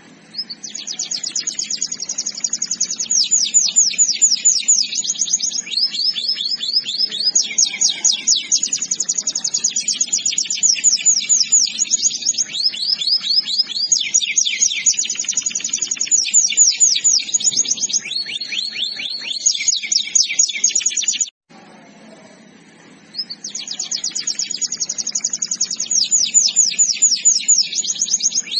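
Domestic canary singing a long song of rapid trilled phrases. Each phrase is a fast run of repeated high notes, switching to a new phrase every second or two. The song breaks off about 21 seconds in and resumes about two seconds later.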